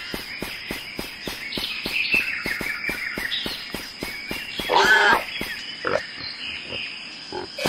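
Jungle ambience sound effect: frogs and insects chirping with a regular ticking of about five strokes a second and a steady high whine, and a short wavering animal call about five seconds in.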